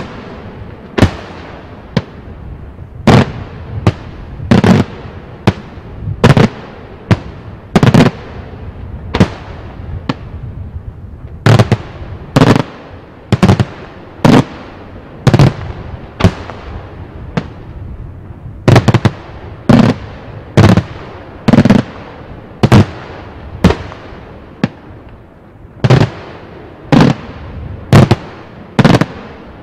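Daytime fireworks: aerial shells bursting high overhead with sharp loud bangs, about one a second in a steady sequence, each followed by a short echoing tail.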